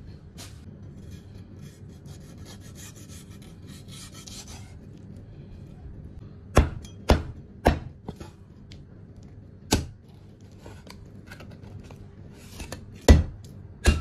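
Kitchen knife chopping sturgeon into pieces on a cutting board, cutting through the fish's soft cartilage. Soft scraping and rubbing in the first half, then six sharp chops at uneven intervals, the loudest near the end.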